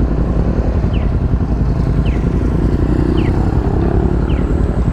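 Kawasaki Ninja 400's parallel-twin engine idling steadily while stopped. A short, high falling chirp repeats about once a second.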